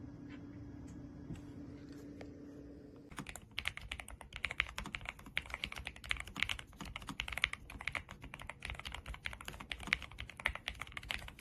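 Typing on a NuPhy Air75 V3 low-profile mechanical keyboard: after about three seconds of a faint steady hum, rapid continuous key clicks start and keep going.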